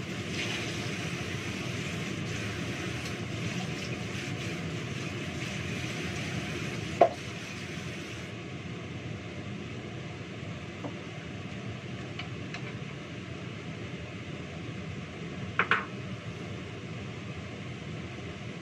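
Washing at a kitchen sink: tap water running, a sharp clink of kitchenware about seven seconds in, after which the water sound drops, and two quick clinks of dishes near the end.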